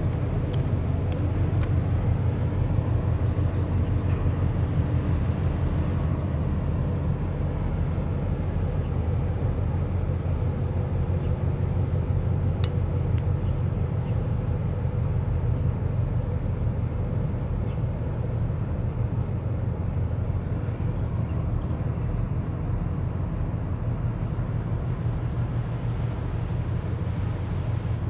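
Deep, steady rumble of a large container ship's engine and machinery as the ship passes close by, with a low buffeting roar mixed in.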